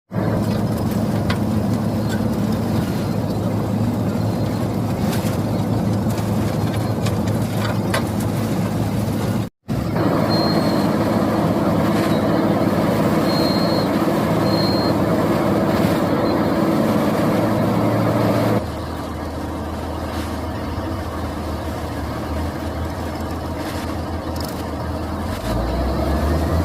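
Asphalt milling machine running steadily, its diesel engine working under load as the cutting drum grinds into the road surface. There is a brief break about a third of the way in, and about two-thirds in the sound drops to a quieter, lower running.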